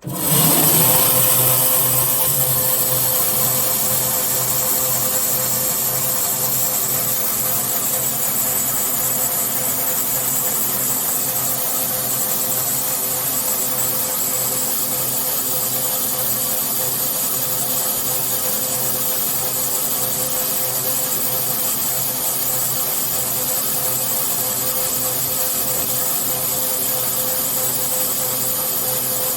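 Wirex CZP-2 vertical twin-band resaw running, with a steady, dense mechanical noise from its two band-saw heads and a high hiss on top. It begins suddenly and stays even.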